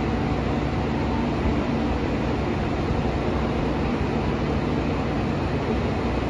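A standing JR Kyushu 813 series electric train humming steadily as its onboard auxiliary equipment and air-conditioning blowers run, with no distinct events.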